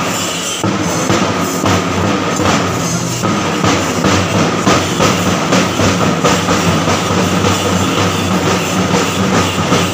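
Kerala temple-festival drum ensemble: several large double-headed drums beaten with sticks in a fast, dense, continuous rhythm, with a steady tone running through the din.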